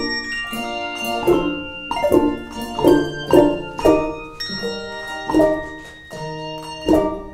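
Handbell choir ringing a piece: chords of many bells struck together in a steady rhythm, each ringing on and fading before the next.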